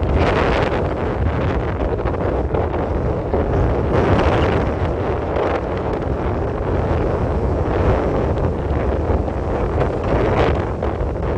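Sea waves washing in, overlaid by strong wind buffeting the microphone; the rush swells about four seconds in and again near the end.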